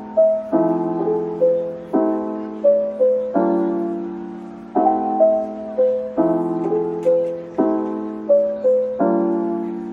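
Background piano music: a slow piece with a chord struck about every second and a half, each fading away, and a melody of single notes moving above it.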